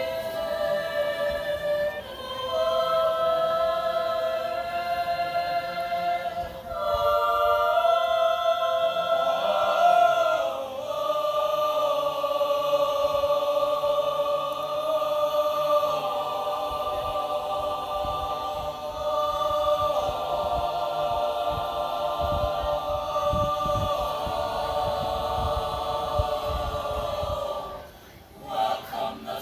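Mixed youth choir singing unaccompanied in sustained chords, the held notes shifting every few seconds. The singing stops near the end.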